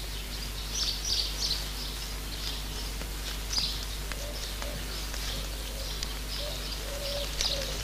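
Small birds chirping repeatedly in short high calls, over a steady low hum.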